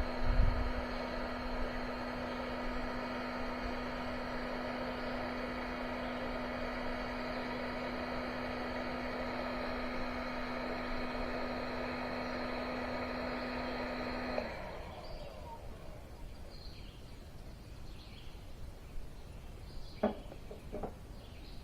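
Electric heat gun running with a steady humming whine while heating heat-shrink tubing over a crimped wire connector. It switches off about two-thirds of the way in. A few short chirps follow near the end.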